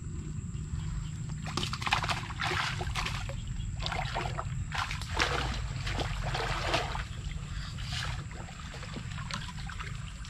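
Shallow muddy water splashing and sloshing in irregular bursts for most of the first seven seconds, quieter near the end, over a steady low rumble.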